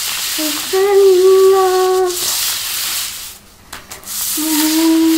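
A deck of cards being swirled and slid across a tile floor by hand, a rough swishing rub. Over it someone hums a long steady note twice, once in the first half and again near the end.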